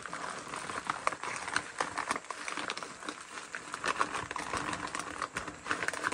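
Plastic lure packaging crinkling and rustling as hands rummage through a bag of individually packed soft-plastic baits: a dense, continuous run of small crackles and clicks.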